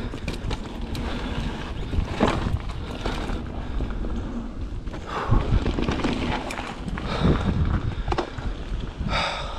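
Wind rushing over the microphone, with tyre noise on dirt and the rattle of a mountain bike descending a trail. Sharper knocks come every few seconds as it hits bumps.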